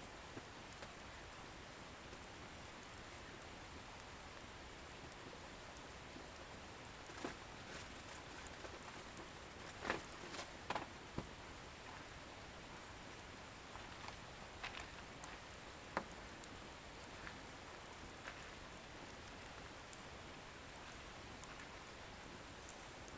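Firewood burning in an open bonfire: a low steady hiss with scattered crackles and pops, a cluster of sharper pops about ten seconds in and another single pop a few seconds later.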